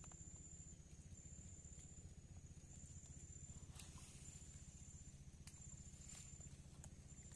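Faint, high-pitched insect call: a thin steady tone repeating about every second and a half, each call lasting under a second, over a low hum. A few faint clicks come in the second half.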